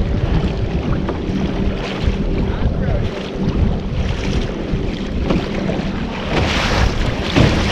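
A motor engine hums steadily under heavy wind buffeting on the microphone, with the wind gusting louder near the end.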